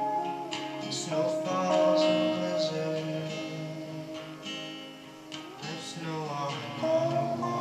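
Acoustic guitar strumming chords while an electric guitar plays a melodic lead over it, an instrumental break in the song. Around six seconds in, a few notes slide up in pitch.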